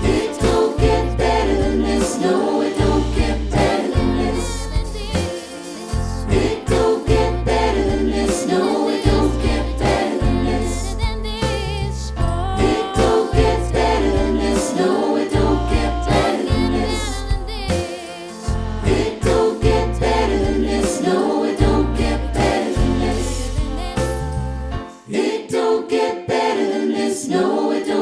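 Choir singing with instrumental backing and a steady bass line. About 25 seconds in the backing drops out and the voices carry on unaccompanied.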